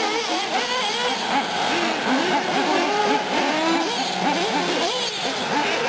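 Several 1/8-scale nitro RC trucks and a buggy being driven, their small glow engines revving up and down in many overlapping rising and falling whines.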